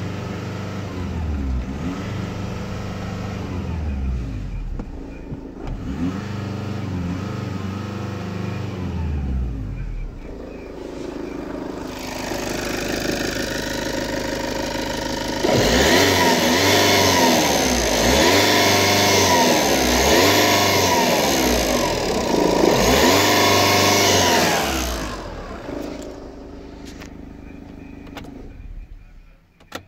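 VW 2.0 TDI CBBB four-cylinder common-rail diesel engine revved up and down repeatedly, each rev rising and falling in pitch. It is much louder for a stretch in the middle, heard at the open engine bay, then settles back to idle near the end.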